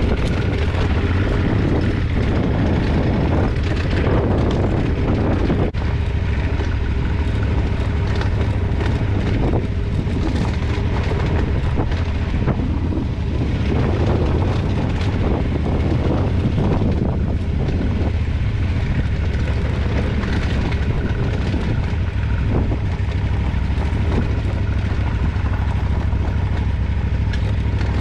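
Dual-sport motorcycle engine running steadily as the bike rides over a rocky dirt trail, with heavy wind rumble on the helmet-mounted microphone and scattered knocks and rattles from the wheels crossing stones.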